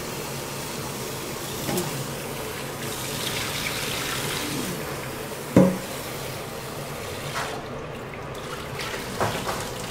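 Kitchen tap running into a stainless steel bowl as lettuce leaves are rinsed by hand, water splashing and pouring off into a steel sink. One sharp knock about halfway through.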